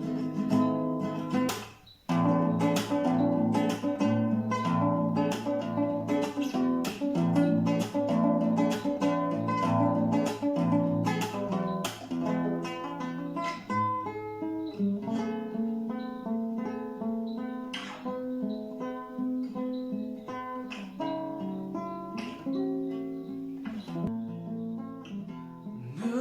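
Instrumental music: acoustic guitar strummed and plucked, with a brief drop in sound about two seconds in.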